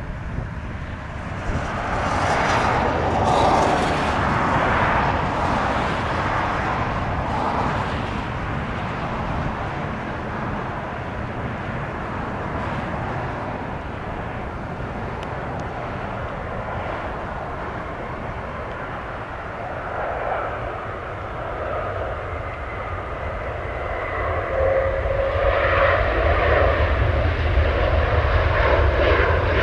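Jet airliner engines, loud a few seconds in and slowly fading as the plane passes, then a second jet's engines building near the end with a steady whine.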